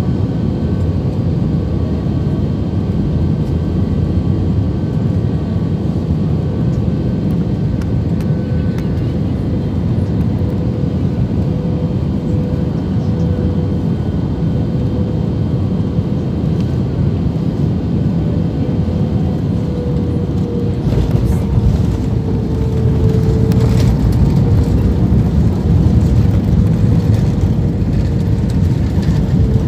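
Jet airliner cabin noise on final approach: a steady roar with a faint engine hum. About two-thirds of the way in, the sound changes with a few knocks as the wheels touch down, and it grows louder as the plane rolls out on the runway.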